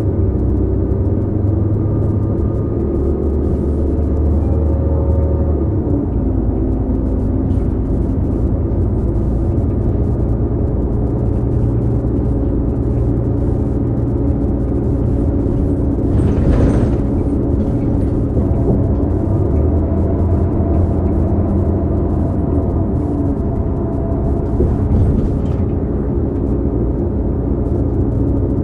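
Cabin sound of a 2018 New Flyer XD40 diesel bus under way: a low rumble with several steady whining tones from the Allison B3400xFE transmission, an odd bearing noise. The pitch steps down about six seconds in, and there is a brief hiss a little past halfway.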